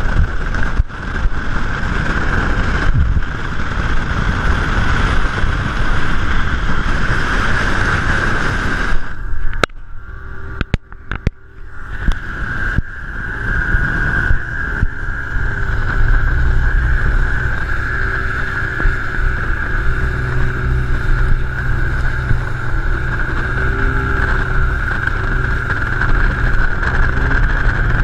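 Bass boat running at speed across a lake: a steady rush of wind and water over a side-mounted camera, with the Mercury outboard's drone underneath. About ten seconds in the noise briefly drops away, with a few sharp knocks, then comes back.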